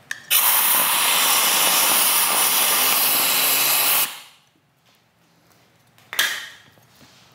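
Compressed-air blow gun blasting a pull string through the inside of a handlebar tube: a loud steady hiss of air for about four seconds that cuts off, then one short second blast near the end.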